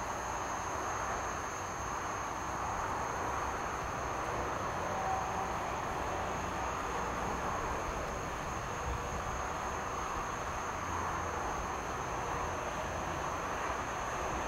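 Steady outdoor background noise: an even rushing hiss with a constant thin high-pitched whine over it, no distinct events.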